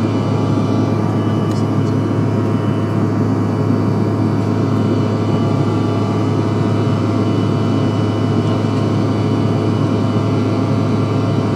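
Cabin noise of a Bombardier CRJ-1000 climbing after take-off, heard beside its rear-mounted General Electric CF34 turbofan engines: a steady roar with a strong low hum and many steady whining tones.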